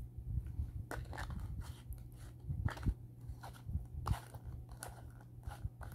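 Irregular clicks and crackles of a plastic cosmetic cream jar being handled close by as its screw lid is put back on.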